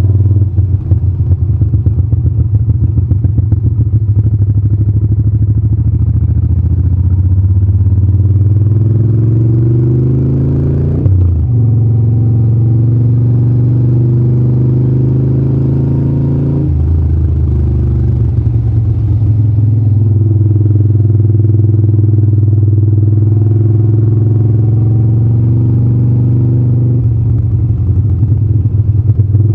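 Moto Guzzi California 1400 Custom's 1380 cc air-cooled V-twin running under way at road speed. The engine note climbs steadily, then drops suddenly about a third of the way in, with further sudden shifts in pitch later on.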